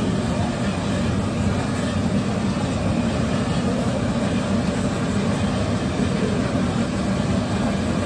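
Kachoris deep-frying in a large kadai of oil, sizzling under a steady, loud low rumble that does not let up.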